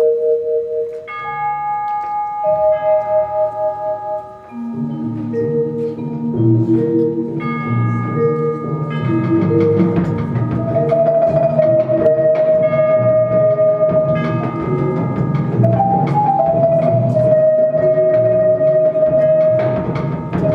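Jazz percussion ensemble playing on mallet instruments. Long ringing bell-like notes open the passage. About four and a half seconds in, a busy line of short, lower mallet notes and drums joins, with held ringing notes sounding above it.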